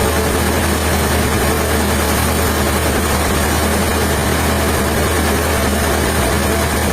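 Sawmill machinery running steadily with a constant low hum and a noisy, even wash of sound above it.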